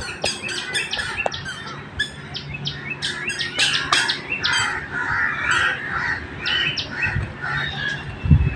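Many birds chirping and calling over one another: a dense chorus of rapid, short overlapping chirps with some harsher squawks.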